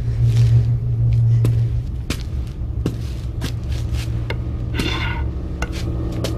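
Low, steady rumbling drone of a tense film soundtrack, easing a little after about two seconds, with scattered small clicks and knocks and a brief squeak about five seconds in.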